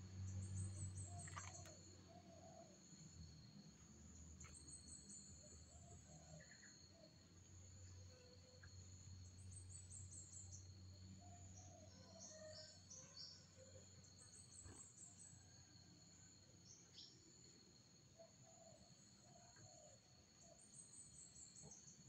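Faint ambience: a steady, high insect trill throughout, with short clusters of high chirps every four to five seconds.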